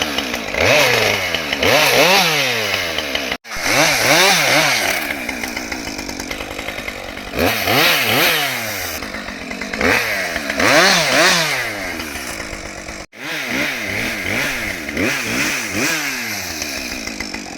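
Husqvarna 550 XP Mark II two-stroke chainsaw cutting into a broken goat willow, its engine revving up and down again and again. The sound cuts out abruptly for an instant twice, at about three and a half and thirteen seconds in.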